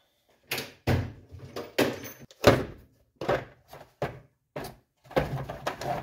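A cheap socket set in its plastic case being handled: a dozen or so irregular knocks and clunks, the loudest about two and a half seconds in, as the case is set down on a wooden workbench and opened.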